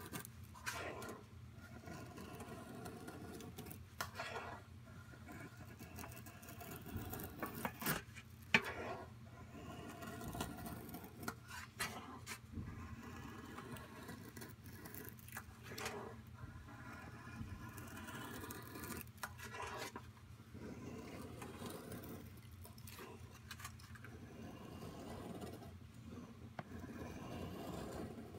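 KA-BAR Becker BK2 knife blade shaving curls down a wooden stick to make a feather stick: separate scraping strokes, one every few seconds, with a few sharp clicks among them.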